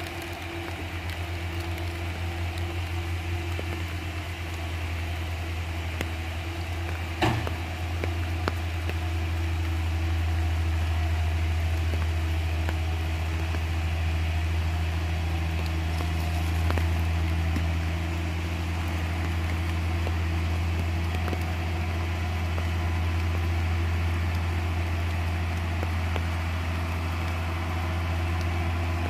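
Loaded heavy truck's diesel engine pulling slowly up a steep grade, a deep steady drone, with a single sharp knock about seven seconds in.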